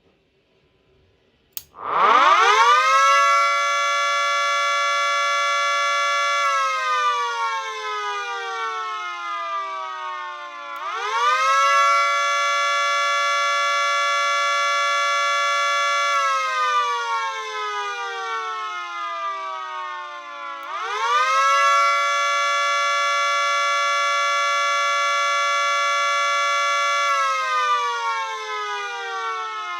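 Miniature Federal Signal 2T22A two-tone siren, run without its horns, clicks on and winds up to a loud steady chord, holds it for a few seconds, then winds down and rises again. It goes through three rise-hold-fall cycles about ten seconds apart, the slow wail of an attack signal.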